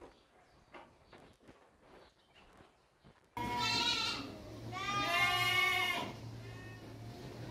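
Dorper sheep bleating twice, a short call about halfway through, then a longer, wavering one.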